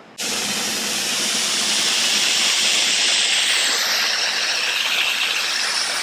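Air-powered oil evacuator hissing loudly as compressed air from the shop airline runs through it. The hiss cuts in abruptly a fraction of a second in, when the airline is hooked up, and then holds steady, easing slightly near the end, while it sucks the engine oil out of the oil pan through a tube.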